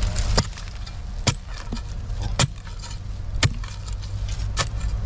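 A digging tool striking into a soil mound in a series of sharp knocks, roughly one a second, over a steady low rumble.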